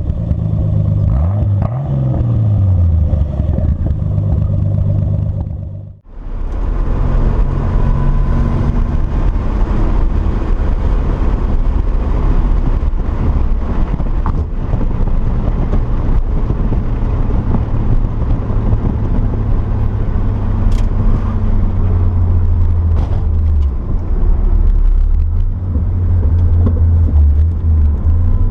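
Datsun 240Z engine and exhaust revving, rising and falling in pitch, then after a sudden cut about six seconds in, running steadily with small swings in pitch.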